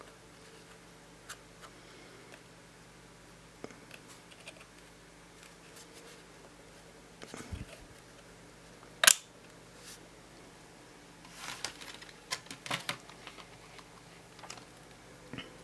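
Small clicks and scrapes of a G.Skill laptop RAM module being handled and fitted into the memory slot of a Lenovo W530, with one sharp, loud click about nine seconds in and a run of lighter clicks a couple of seconds later.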